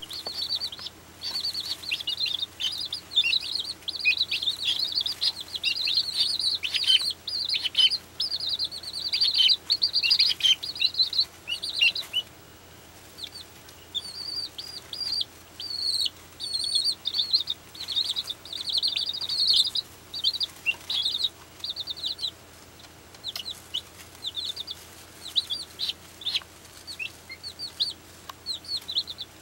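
A brood of baby chicks peeping: many short, high peeps overlapping, thick for the first dozen seconds, then a brief lull and sparser peeping.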